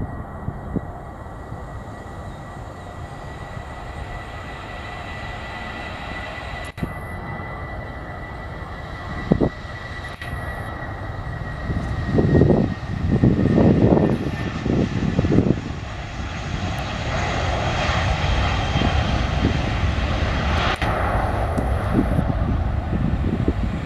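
Airbus A320-family twin-jet's engines at takeoff power during the takeoff roll. A steady high whine sits over a broad rumble that grows louder as the jet accelerates. Uneven low rumbling surges come about halfway through.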